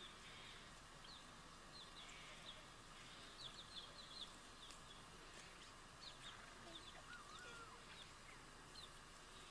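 Faint bird chirping: many short, high notes sliding downward, in quick runs, over a soft steady hiss, with one brief wavering lower call about seven seconds in.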